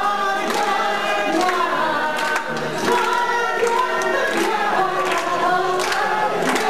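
A large group of voices singing together, with a regular sharp beat under the song.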